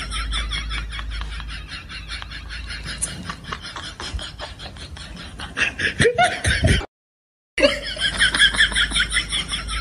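Human laughter in short repeated bursts. It breaks off abruptly about seven seconds in for under a second of silence, then starts again.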